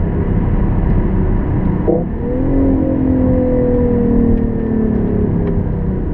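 BMW i8's turbocharged petrol engine running under way over road rumble, with a quick jump in pitch about two seconds in, then a note that slowly falls in pitch.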